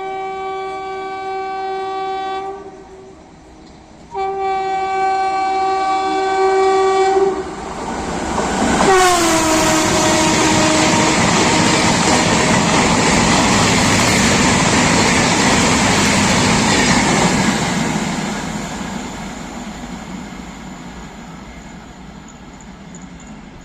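Superfast passenger train's horn sounding two long blasts, then the train rushing past at speed with the horn's pitch dropping as it goes by. The noise of the passing train stays loud for several seconds and then fades out.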